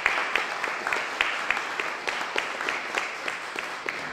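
Audience applauding, many hands clapping, slowly dying away toward the end.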